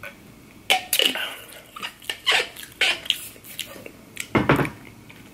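Close-miked gulps and swallows of water drunk from a bottle, about eight separate sounds at uneven spacing, with a deeper, heavier one near the end.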